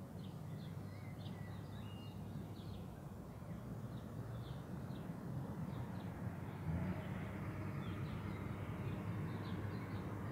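Distant rail motor 402's twin 6-71 diesel engines running steadily as the railcar approaches, the low hum growing slowly louder. Birds chirp over it throughout.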